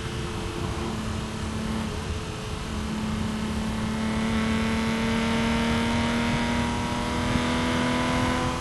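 BMW E36 M3 straight-six heard from inside the cabin, running through a Supersprint street exhaust with the catalytic converter removed, over tyre and road noise. The engine note breaks up briefly in the first few seconds, then pulls steadily under acceleration, its pitch slowly rising as it gets louder.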